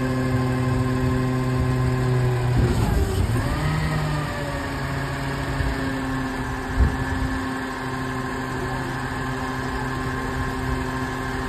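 Automated side-loader garbage truck running, a steady engine hum with a whine; about three seconds in the tone breaks and glides up briefly before settling again. A single knock comes near seven seconds in.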